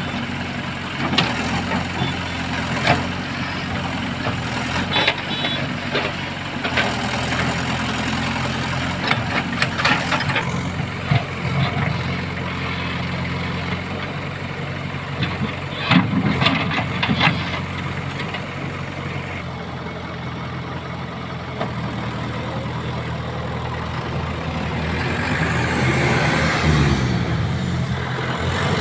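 Diesel engine of a JCB backhoe loader running steadily, with intermittent sharp knocks and clanks from the machine at work.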